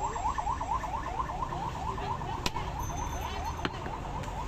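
Two sharp chops of a heavy butcher's cleaver into meat on a wooden stump block, in the second half, over a fast repeating rising chirp, about five a second, that fades after the first half.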